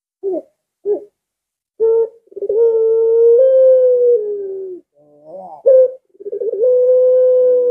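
White ringneck (Barbary) dove of the 'puter pelung' type cooing: two short coos, then two long drawn-out coos of a couple of seconds each, with short notes between them. The first long coo slides slowly down in pitch as it ends.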